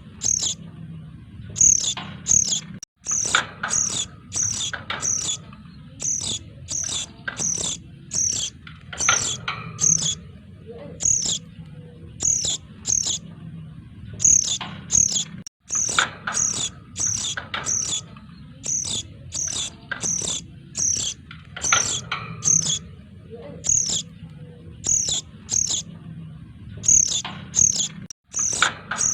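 Lure recording of noisy sogon chicks calling: rapid, short, high-pitched chirps several times a second over a faint steady hum, broken by a brief silent gap about every twelve to thirteen seconds where the loop starts again.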